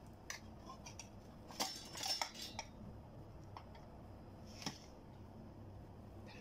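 A fork and a slotted metal spatula clinking and scraping against a metal oven tray as a baked pizza is cut and a slice is lifted. There are a handful of short clinks, the loudest cluster about two seconds in and one more near the end.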